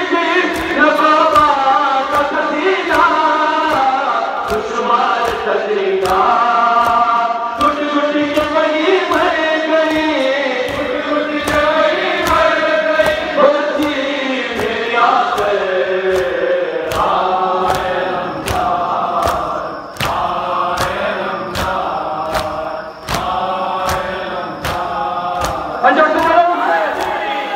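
A group of men chanting a noha, a Muharram lament, in unison, with steady rhythmic chest-beating (matam) from the crowd at about one and a half beats a second.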